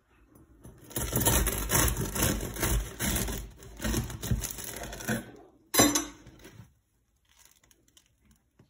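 Serrated bread knife sawing through a loaf of sourdough bread, its crisp crust crackling and crunching with each stroke for about four seconds, followed by one sharp crack just before the six-second mark as the cut goes through.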